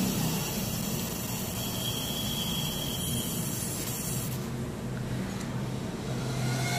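Laser marking machine engraving a powder-coated airsoft pistol body: a steady machine noise with a high hiss that cuts off about four seconds in as the laser stops firing, while the steady noise carries on.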